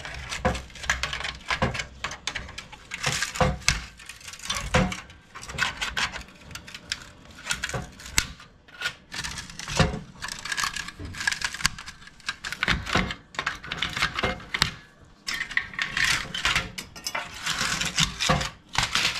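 Thin, rusty sheet-metal heat shields being pried and torn off a Honda CR-V's stock catalytic converter with a hand tool: a busy run of irregular metallic clinks, scrapes and rattles.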